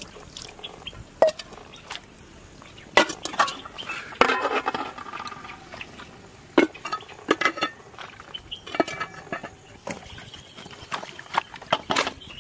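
Irregular clinks and knocks of hard objects, some ringing briefly, with a denser clatter about four seconds in and another near nine seconds.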